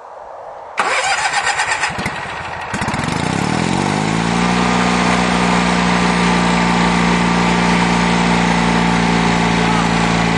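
Kohler 18.5-horsepower lawn tractor engine running on wood gas being cranked by its starter for about a second, then catching and rising to a steady idle.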